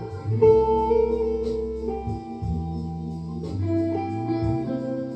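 Electric guitar playing a slow melodic lead of single held notes that step from pitch to pitch, over low sustained bass notes that change every second or two.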